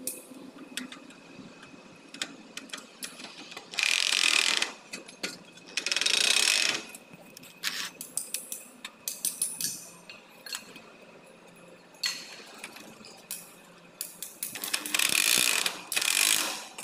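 Handheld electric drill run in three short bursts of about a second each, its bit working at a bracket on an aluminium frame, with clicking and knocking of the tool and metal between the bursts.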